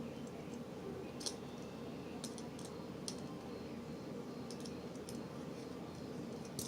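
A few light, scattered metal clicks as a hand tool crimps the edge of a copper bracelet, over a steady low hum.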